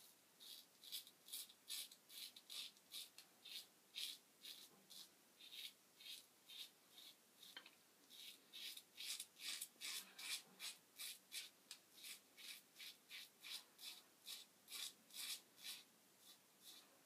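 Merkur Slant safety razor with a Treet carbon steel blade scraping through lathered stubble in short, quick strokes, about three a second, on the second pass of the shave.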